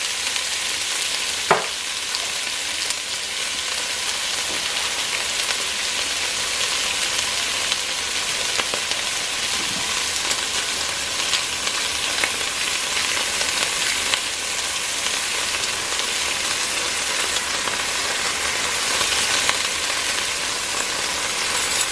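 Chunks of beef searing in hot oil in a Dutch oven: a steady sizzle with scattered small pops and crackles, and a single light knock about a second and a half in.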